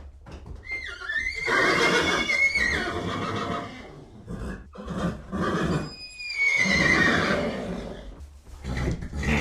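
Horse whinnying: two long calls, the second about three seconds after the first, each falling in pitch at its end.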